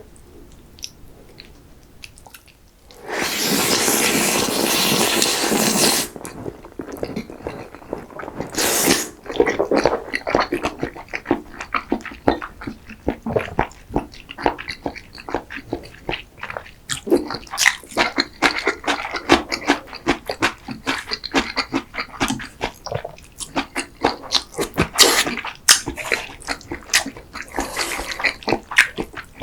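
Close-miked eating of cream pasta and risotto: a long loud slurp about three seconds in and a short one near nine seconds, then steady wet chewing with many small smacking clicks.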